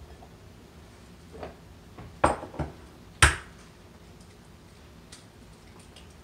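A few sharp clinks and knocks of dishes being handled on a kitchen counter, two close together a little past two seconds in, and the loudest, a ringing clink, about three seconds in.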